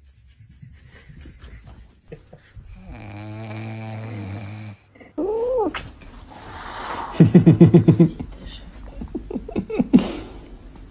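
A man snoring while a cat lies on his head, with a loud rattling snore about seven seconds in. A short cat meow comes just before it.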